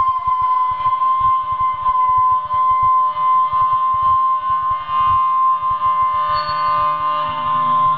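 Electric guitar played through effects, holding one long sustained high note over fast picked low notes.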